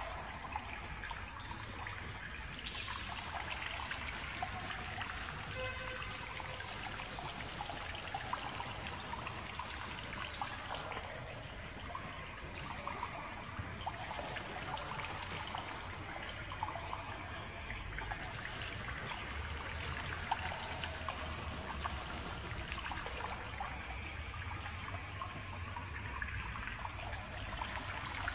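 Water trickling steadily into the shallow, rock-ringed pool of a Lourdes grotto replica.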